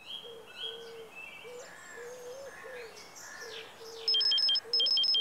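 Birds chirp, with a low cooing call repeated every half second or so. About four seconds in, a phone starts ringing: two quick bursts of rapid electronic beeps that step between two high tones.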